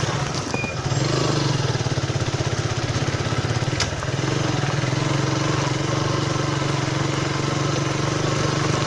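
Suzuki Gixxer's single-cylinder motorcycle engine running steadily on a rough dirt track, with a short sharp click about four seconds in.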